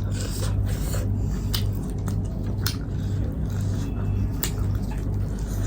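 A person eating close to the microphone: chewing and biting, with a few sharp wet clicks of the mouth, over a steady low hum.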